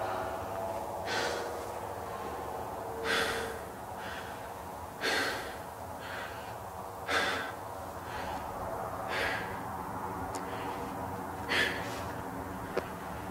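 Slow breaths, one about every two seconds, over a steady sustained drone.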